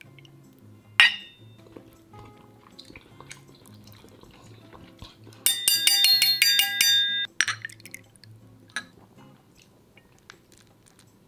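Soju being poured into a small shot glass, with a sharp glass clink about a second in, over soft background music. About halfway through, a loud burst of several high steady tones stutters on and off for nearly two seconds.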